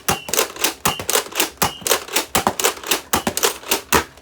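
Nerf Megalodon blaster firing in rapid succession: a fast, even run of sharp clicks, about four or five a second, that stops near the end.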